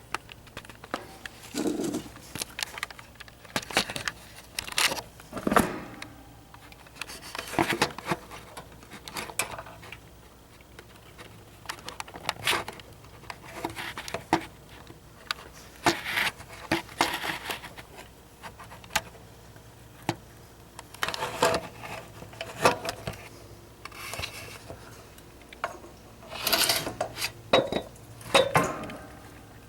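Hard objects being handled and set down: irregular clicks, knocks and light clattering, with a louder cluster of clatter near the end.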